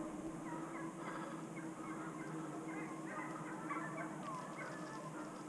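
Many short animal calls overlapping from a distance, over a steady low hum.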